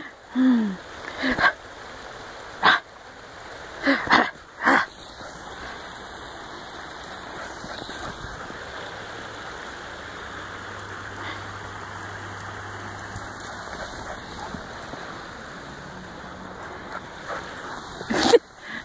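A puppy's vocal sounds: a short whine falling in pitch, then several short sharp barks in the first five seconds and one more near the end. Under them runs a steady rushing hiss of a small creek.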